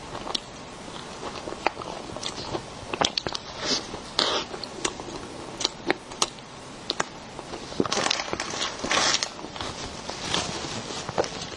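Close-miked chewing and wet mouth clicks of a person eating a green-filled cake pastry, with a short burst of paper rustling about eight to nine seconds in as a tissue is handled.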